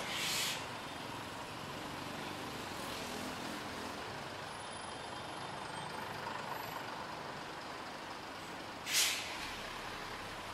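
City street traffic with a steady background rumble and two short hisses of a heavy vehicle's air brakes, one at the start and the louder one about nine seconds in.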